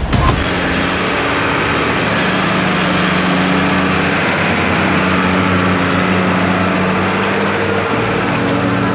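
New Holland 8160 tractor's six-cylinder diesel engine running steadily under load while pulling a plough through the field.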